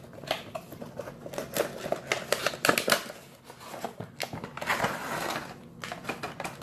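A cardboard retail box being opened and its packaging handled: irregular clicks, taps and flaps, with a longer rustle or scrape of packaging near the end.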